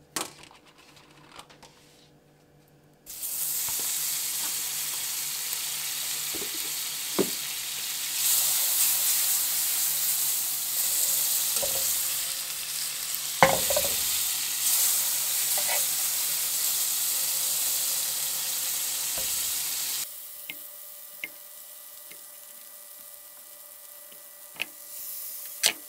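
Margarine sizzling as it melts in a hot non-stick frying pan on a gas burner, starting suddenly about three seconds in. A sharp knock of the pan comes about halfway. The sizzle drops much quieter about twenty seconds in, leaving a faint hum and light clicks near the end.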